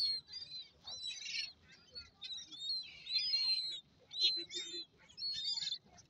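A flock of gulls calling while being fed: shrill, squealing calls overlap in repeated bursts about once a second, with short gaps between them.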